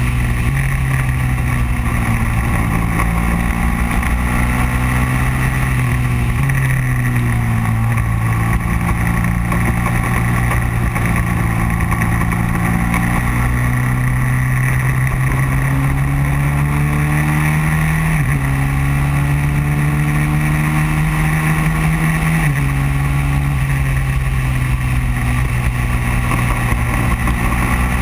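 Racing kart engine at full song on track, heard from the kart itself with wind rushing past. The engine note climbs slowly for long stretches and drops sharply three times.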